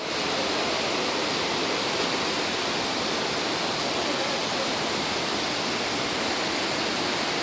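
Floodwater rushing steadily, a continuous even sound of running water.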